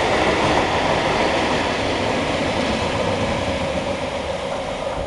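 Freight train of tank wagons and tank containers passing close by, a steady loud rumble and clatter of the wagon wheels on the rails that eases slightly near the end.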